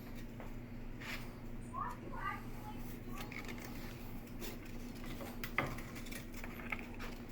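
Scattered light clinks and taps over a steady low hum, with a few brief squeaky chirps about two seconds in.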